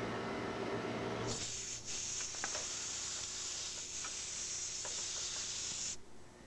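Aerosol can of B-12 Chemtool carburetor cleaner spraying in one steady, high hiss that starts about a second in and cuts off suddenly near the end. The cleaner is being sprayed to clean a Holley carburetor's needle and seat valve.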